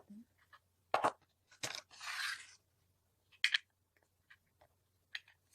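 Small plastic parts being handled: a few sharp clicks and snaps, with a brief crinkling scrape about two seconds in, as a wireless remote is taken out of its packaging and its back is opened.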